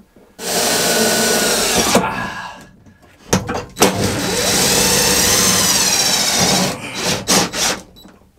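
Cordless drill driving self-tapping screws through a sheet-metal bracket: two long runs of the motor whine, the first about a second and a half, the second about three seconds with the pitch wavering under load, then a few short clicks near the end.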